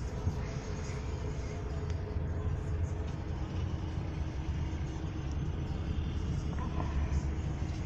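Low, steady engine rumble of a heavy vehicle crawling in slow traffic, heard from inside its cab.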